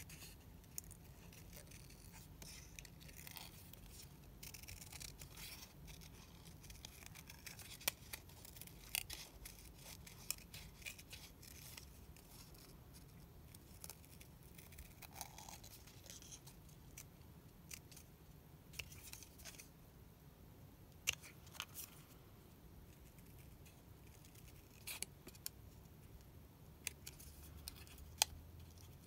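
Small craft snips cutting out a paper image: quiet, irregular snips with soft paper handling in between.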